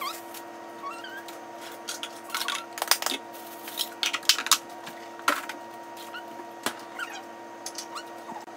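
Kitchen tidying: scattered knocks and clatter of dishes, plastic containers and utensils being handled and set down, busiest a few seconds in, over a steady hum, with a few short faint squeaks.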